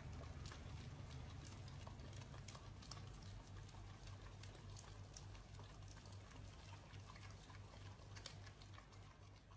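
Faint small wet clicks of two dogs licking at an ice cream cone, over a low steady hum.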